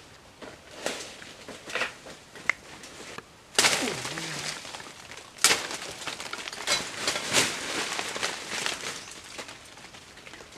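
Irregular crackling and rustling with sharp snaps, louder from about three and a half seconds in; a dove coos briefly about four seconds in.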